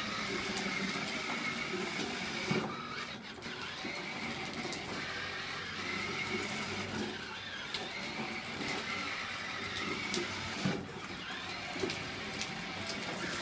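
Children's battery-powered ride-on toy car driving, its small electric motor and gearbox whirring steadily, with a few short knocks.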